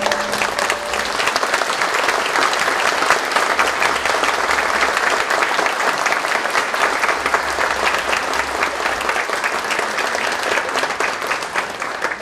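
Audience applauding, with a koto's last notes dying away in the first second; the clapping fades near the end.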